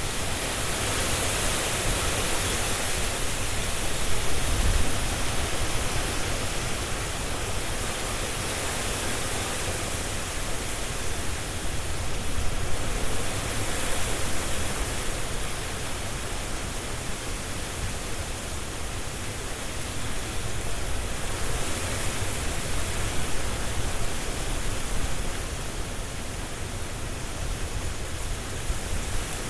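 Strong wind blowing through trees, a dense rustle of leaves that swells and eases in slow gusts every several seconds, with a low rumble underneath.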